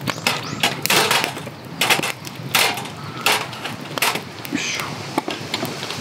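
Wood campfire burning and crackling, with sharp irregular pops and snaps.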